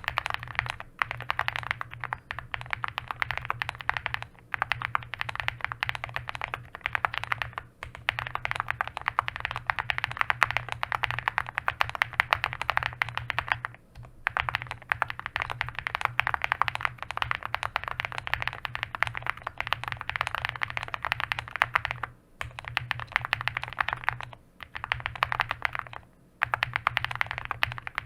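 Fast, continuous typing on an Owlab Spring custom mechanical keyboard with Tecsee Singularity switches on an FR4 plate, foam-filled case, and stainless steel alpha keycaps: a dense run of key clacks, broken by a handful of short pauses.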